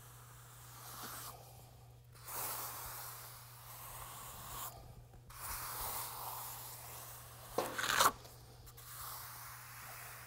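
Hand trowel scraping across freshly spread trowel-grade urethane concrete in long, gritty smoothing strokes with short pauses between them. Two sharp clicks near the end are the loudest sounds.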